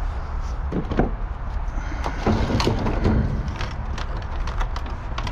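Junk being pulled about and shifted in a dumpster: scattered knocks, clatter and cracking of wood and metal, busiest about two to three seconds in, over a steady low rumble.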